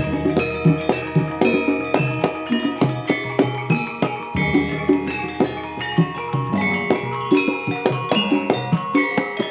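Jaranan gamelan music: struck bronze metallophones and gongs ringing over kendang drum strokes in a fast, steady rhythm of several strikes a second.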